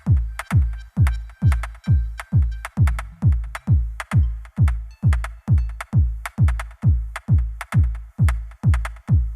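Electronic background music with a steady kick-drum beat, about two and a half beats a second, and ticking hi-hats.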